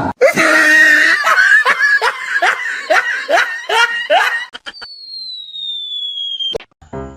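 A person laughing hard in quick, rhythmic bursts of ha-ha for about four seconds. Then comes a single thin whistling tone sliding steadily downward for nearly two seconds, cut off sharply.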